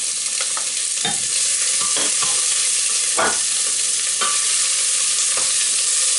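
Diced fennel, shallot and garlic sizzling in hot olive oil in a stainless steel pot: a steady frying hiss, with irregular knocks and scrapes of a wooden spoon stirring the vegetables.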